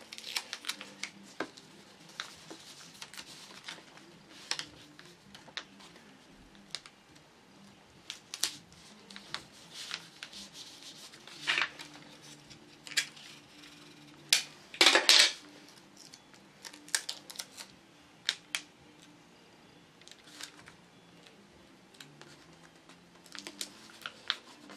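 Sheet of printer paper being handled and creased by hand: scattered soft rustles, taps and crinkles, with two louder rustles midway.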